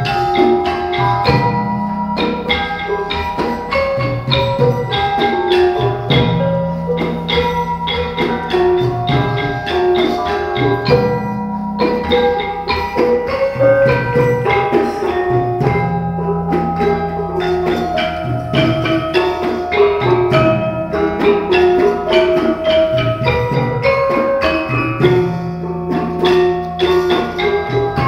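Gamelan ensemble playing: bronze metallophones and gongs struck in a quick, dense rhythm of ringing notes, with a low sustained note returning every few seconds.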